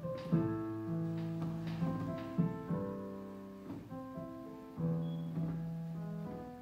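Piano played slowly by a first-day beginner: overlapping held notes and chords over sustained low bass notes, with new notes struck about every half second.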